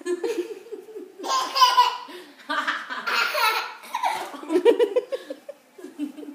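Toddler laughing hard in several bursts with short breaks between them, loudest a little past a second in and around three seconds.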